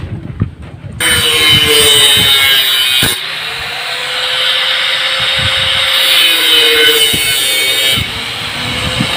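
An electric angle grinder starts up about a second in and runs loudly while cutting metal. Its motor note sags briefly as the disc bites, near three seconds and again near eight.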